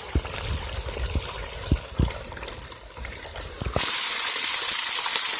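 Hot oil in a turkey-fryer pot bubbling and sizzling around a turkey being lowered in on a lifting hook, with a few dull knocks in the first two seconds. About four seconds in the sizzling surges suddenly much louder and stays loud.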